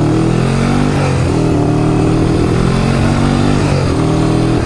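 Old multi-cylinder motorcycle engine running on the road, its note holding fairly steady with small shifts in pitch, over wind rushing past the helmet microphone. The owner suspects one cylinder isn't firing until the revs climb.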